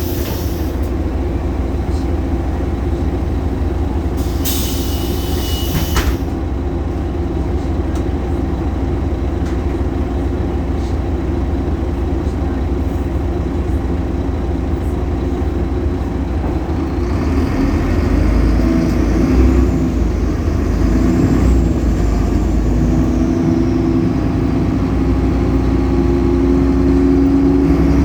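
DAF Paccar PR265 diesel engine of a Solaris Urbino 18 articulated bus running, with loud belt noise. A burst of compressed-air hiss comes about four seconds in. From about seventeen seconds in the engine pulls harder and louder, with a whine that climbs and then falls away.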